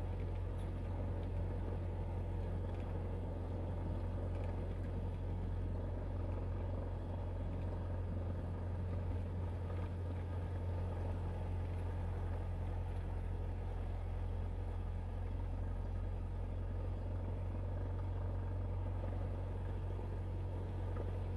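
Cessna 172 Skyhawk's piston engine and propeller running at low taxi power, heard from inside the cockpit as a steady low drone.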